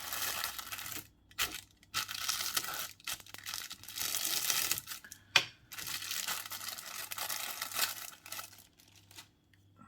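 Thin plastic bag crinkling and rustling in irregular bursts as it is handled and opened, with a sharp click about five seconds in.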